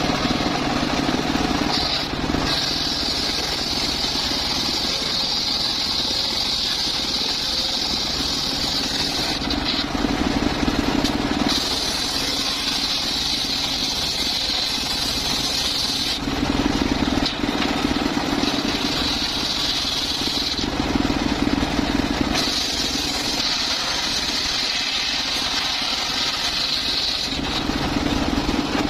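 Circular saw cutting mahogany: four cuts of about two to five seconds each, the blade's pitch rising high while it is in the wood, with the saw running free at a lower hum between cuts.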